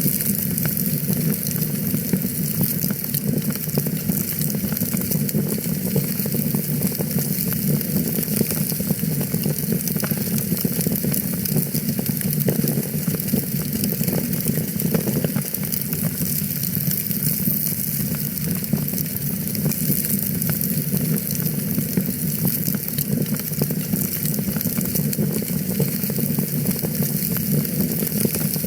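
Wood fire burning in a fireplace, crackling steadily: a dense run of small pops and snaps over a low, even rush of flame.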